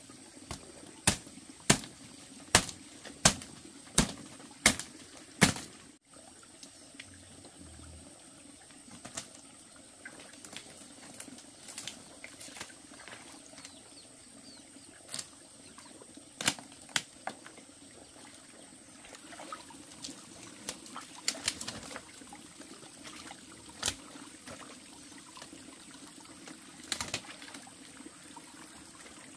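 A run of about seven sharp knocks at a steady pace, roughly one every 0.7 seconds, in the first five seconds or so, then scattered single knocks.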